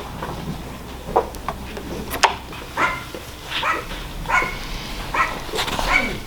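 A dog giving a series of short, high barks and yips, roughly one a second.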